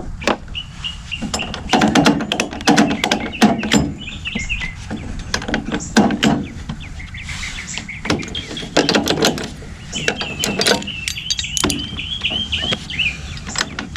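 Socket ratchet clicking in quick runs as a bolt is tightened, with metal clinks between. Birds chirp now and then, most clearly near the start and again over the last few seconds.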